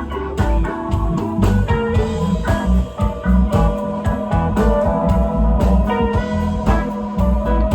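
Live blues-rock band playing an instrumental passage: electric guitars, bass and drums.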